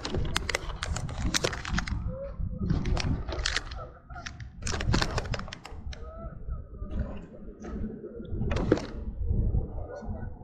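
Plastic packaging of fishing baits being handled: crinkling and clicking in irregular bursts, with a steady low rumble underneath.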